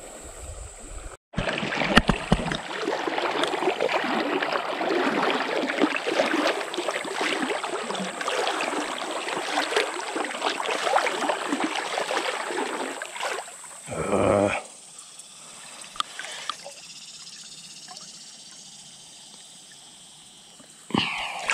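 Legs wading through shallow river water, with continuous sloshing and splashing for about ten seconds. Then comes one short louder sound, followed by quieter water movement.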